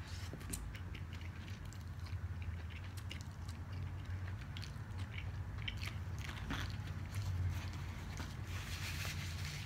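Close-miked eating sounds: a person sucking in and chewing soft chow mein noodles, with many small wet mouth clicks. Near the end a plastic fork scrapes and rustles in a foam takeout container.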